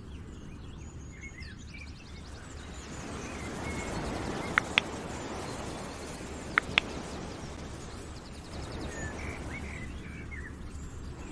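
Background nature ambience of birds chirping over a steady rushing noise. Midway through, two quick double clicks about two seconds apart, like mouse-click sound effects.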